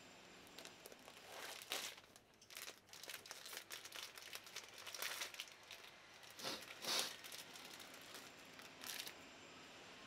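A muffin's paper wrapper crinkling and tearing as it is unwrapped by hand, in irregular bursts, loudest about two seconds in and again about seven seconds in.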